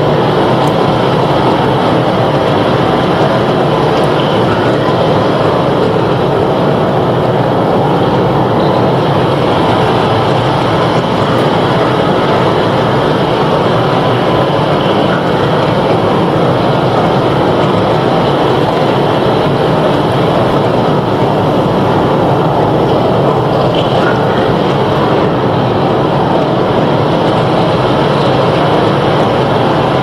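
Ocean surf: a loud, steady roar of breaking waves, dense and even, with no single wave standing out.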